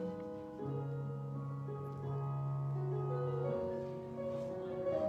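Slow instrumental music: held chords on a keyboard instrument, moving to a new chord every second or so.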